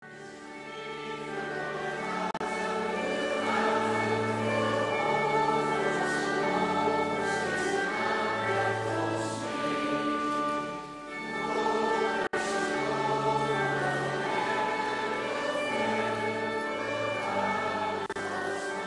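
Youth choir singing slow, sustained chords over low held bass notes, easing into a short lull about eleven seconds in before going on.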